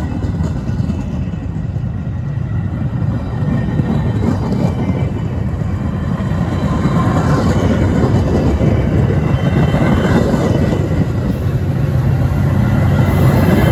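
Metra bilevel commuter cars rolling past on departure, their wheels rumbling steadily on the rails. The sound grows louder toward the end as the train gathers speed.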